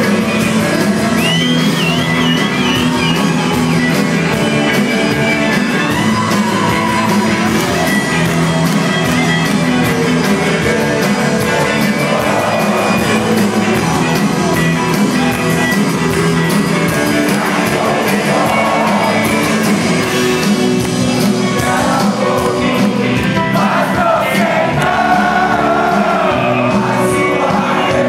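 Rock band playing live in a large hall, electric guitars and drums loud and steady, with singing, heard from among the audience.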